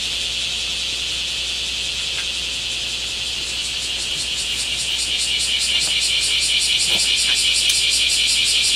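Cicadas singing: a steady high buzz that, about halfway through, turns into a rapid even pulsing and grows louder.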